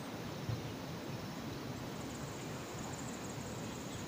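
Steady outdoor background noise with no distinct event, and one soft thump about half a second in.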